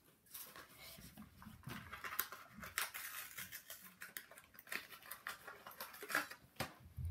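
Crackling and clicking of toy car packaging being handled and pulled open, a plastic blister and card backing, in quick irregular bursts with a few soft knocks.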